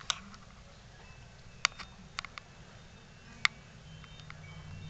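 A handful of sharp, irregularly spaced clicks over a faint low hum.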